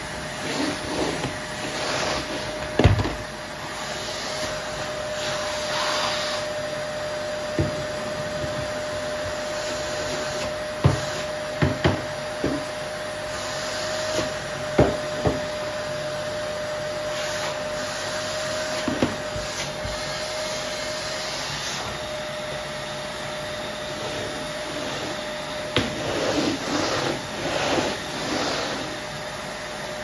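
Bagless canister vacuum cleaner running steadily with a constant whine over its rushing air, its floor brush pushed across a laminate floor. Short sharp knocks come every few seconds, several close together near the end.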